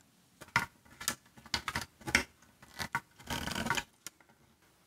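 Small clicks and taps of wires and metal parts being handled, then a short scrape a little past three seconds in as a screwdriver turns down a screw on a metal terminal block.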